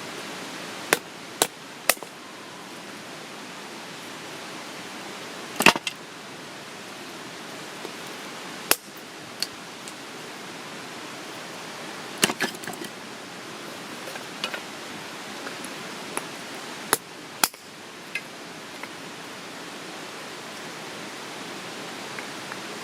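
A steady hiss with about a dozen sharp cracks or clicks at irregular moments, a few of them in quick pairs.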